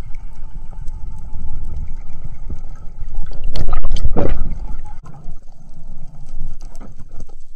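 Water moving against an underwater camera housing: a steady low rumble, with a loud churning rush of about a second and a half in the middle.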